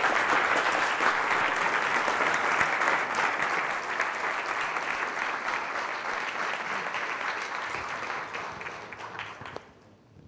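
Audience applauding, loudest at the start and gradually thinning out until it dies away near the end.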